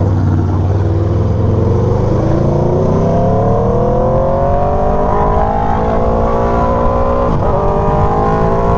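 Aprilia Tuono V4's V4 engine, fitted with an SC-Project GP exhaust, pulling steadily up through the revs under acceleration, with a brief break about seven seconds in before it climbs on. Wind noise on the helmet mic runs underneath.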